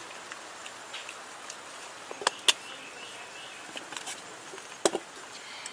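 Steady outdoor background hiss with a faint high insect drone, broken by a few sharp clicks and taps of utensils on dishes, about two seconds in and again near four and five seconds.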